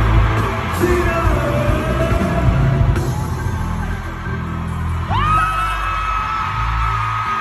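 Live concert music from a band, with a voice singing over a steady bass line. About five seconds in, a single high note starts with a quick rise and is held for about two and a half seconds, while the audience shouts.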